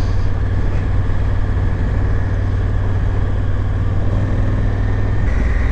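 Adventure motorcycle engine running steadily at cruising speed, with road and wind noise from riding a gravel backroad.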